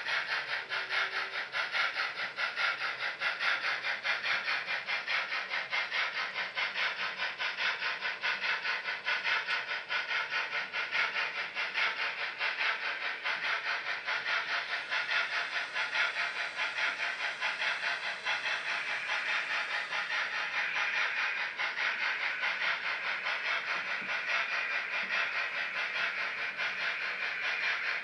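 OO gauge model steam locomotive's DCC sound decoder playing a steady, fast chuffing with a hiss.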